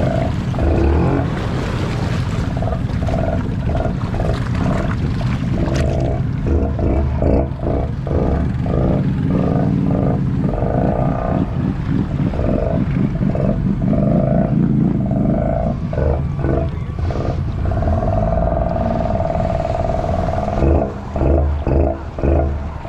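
Honda ATV engine revving hard, the throttle pulsed on and off in quick blips, then held steadier for a couple of seconds.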